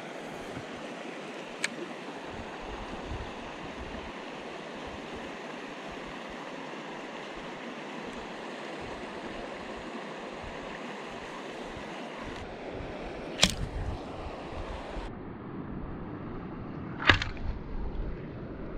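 Steady rush of water and wind across open lake water, broken by three sharp knocks: a light one about two seconds in and two louder ones near the end.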